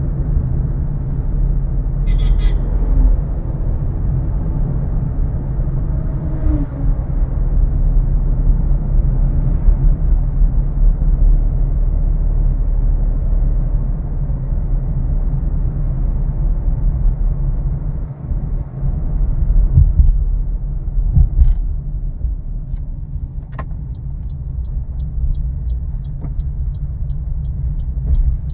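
A steady low rumble of a car's engine and road noise, heard from inside the cabin while driving, with a few sharp clicks near the end.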